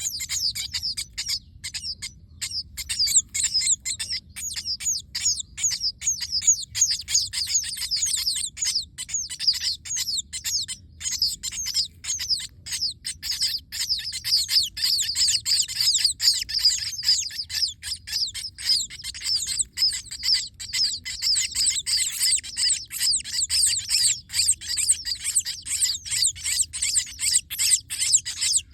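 Sparrows chirping, many at once: a dense, unbroken chatter of short, high chirps.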